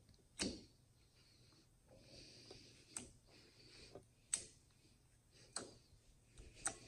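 Fingers poking and pressing a bowl of jiggly clear shampoo-and-water slime, giving about five faint, sharp taps spread out over several seconds.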